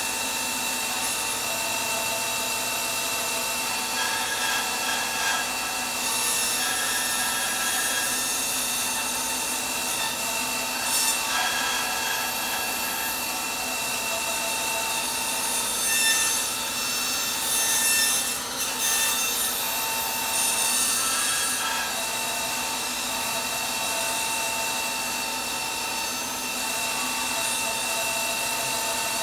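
Laguna 14|12 bandsaw running with a steady whine while its blade makes a series of short cuts into a half-inch cherry board, cutting dovetail tails. Each cut adds a hissing rasp over the motor and blade whine.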